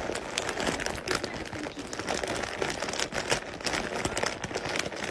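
Crinkling and crackling of a foil potato-chip bag as a cat shifts its weight on it and rubs its head against it: a dense, continuous rustle of many small crackles.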